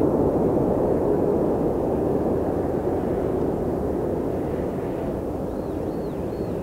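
Jet engine rumble of a Boeing 777-300ER's GE90 engines, a steady deep noise slowly fading as the aircraft moves away.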